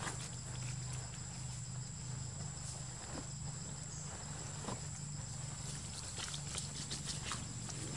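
Steady outdoor ambience: a constant high insect drone over a low steady hum, with a few faint rustles and ticks in dry leaf litter.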